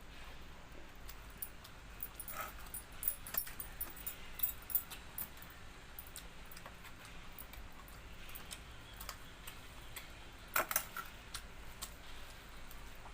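Close-up eating sounds: scattered sharp, crisp clicks and small crunches of chewing and handling food, in a cluster a couple of seconds in and another near the end.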